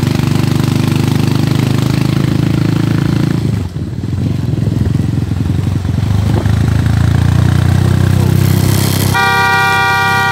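Motorcycle engine running under way, its note dropping away briefly about three and a half seconds in and then picking up again. Near the end a vehicle horn honks loudly.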